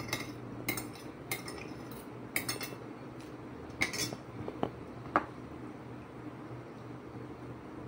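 Metal fork and spoon clinking and scraping against ceramic plates during a meal, a string of sharp clinks over the first five seconds. After that only a low steady hum remains.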